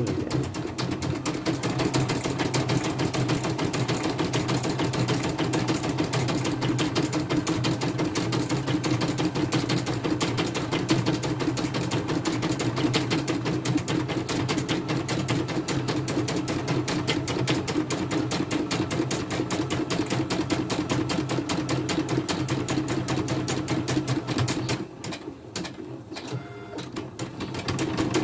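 CNY portable computerized embroidery machine stitching at speed: a fast, even chatter of needle strokes as the hoop moves the fabric under the needle. Near the end it goes quieter for about three seconds, then the stitching picks up again.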